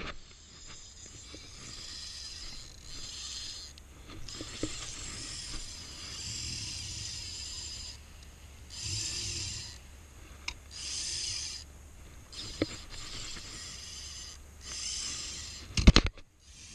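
Graphite spinning reel whirring in repeated spurts of a second or two while a hooked fish is being fought on light line, with a few small clicks and one loud knock near the end.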